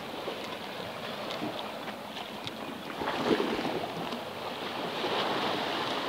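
Sea waves washing and splashing around boulders at the water's edge, with wind on the microphone; the wash swells louder about halfway through.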